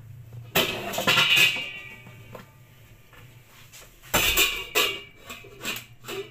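Metal pot lids and pans clattering and ringing as they are rummaged through for a lid, in two loud bursts about half a second in and about four seconds in, with lighter knocks between.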